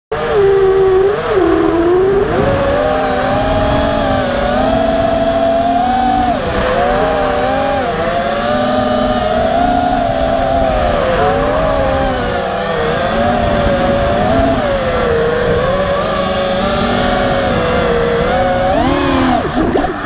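Five-inch FPV racing quadcopter's brushless motors and propellers whining, the pitch sliding up and down as the throttle changes, with wind rushing over the onboard camera. Just before the end the pitch drops sharply and climbs again as the throttle is cut and punched during a steep bank.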